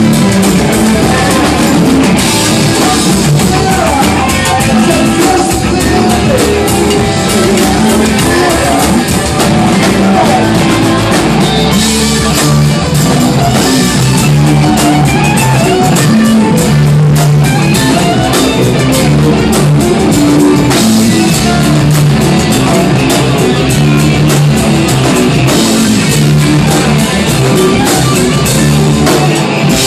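Live rock band playing loud, an instrumental stretch with electric guitars over bass and drum kit.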